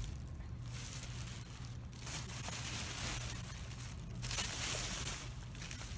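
Plastic garbage bags rustling and crinkling as they are shoved and pulled about, in several long stretches, loudest about four and a half seconds in.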